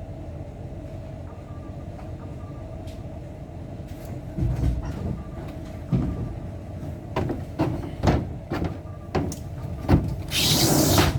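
A vehicle running with a steady low hum, with irregular knocks and rattles from about four seconds in and a loud burst of rushing noise near the end.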